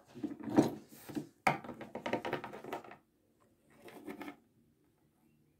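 Rustling and clattering of small objects being handled, in three bursts. The second burst starts with a sharp knock about a second and a half in.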